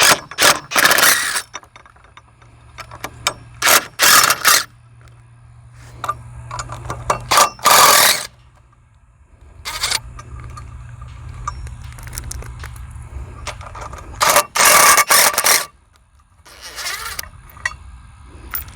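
Lag screws being backed out of a wooden gate post with a 7/16 socket, in about six short loud bursts of tool noise, with a steady low hum underneath through the middle.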